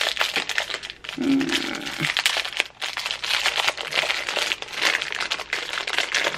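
Foil blind bag being crinkled and torn open by hand: a dense, continuous run of crackles and crinkles.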